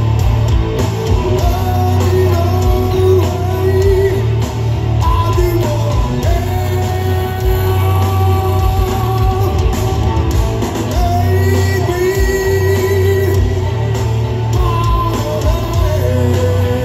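Heavy rock band playing live through a venue PA: electric guitars, bass and drums, with a long, gliding lead melody on top.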